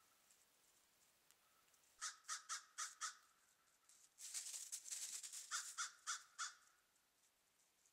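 Short harsh animal calls in quick succession, five in about a second, then a longer, denser run of them about four seconds in, mixed with a rustling noise.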